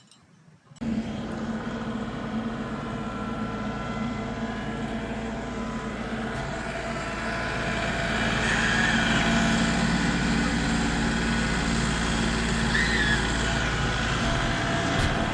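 A steady motor drone with a low hum starts suddenly just under a second in and grows a little louder midway, with a couple of brief high chirps over it.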